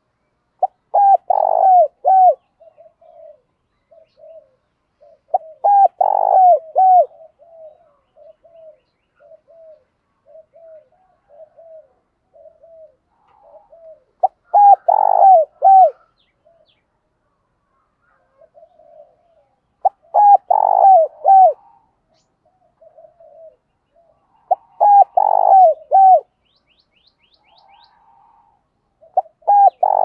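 Spotted dove cooing. A loud phrase of three or four coos comes about every five seconds, with softer single coos in between.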